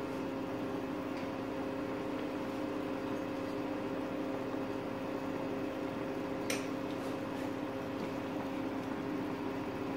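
A steady mechanical hum over an even hiss, with one light click about six and a half seconds in.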